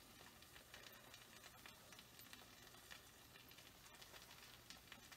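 Faint sizzling of omelette eggs cooking in a nonstick skillet, with scattered light crackles.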